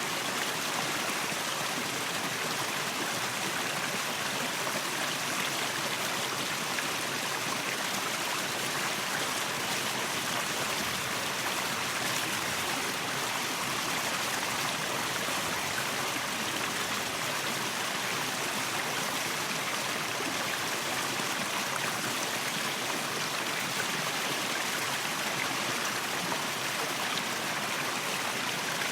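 Waterfall: water falling and rushing in a steady, even hiss with no breaks.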